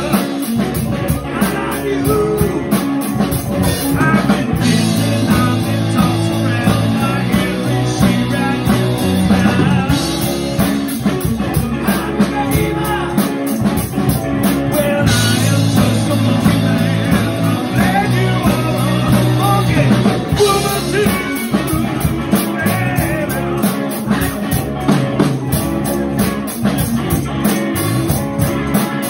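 Live rock band playing: a male singer singing over electric bass, electric guitar and a drum kit keeping a steady beat.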